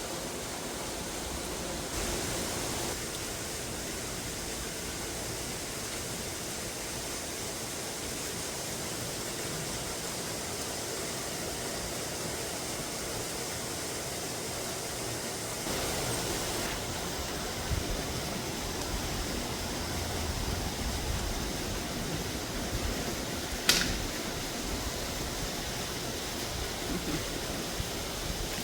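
Steady hiss of falling rain, with a low rumble partway through and a single sharp click late on.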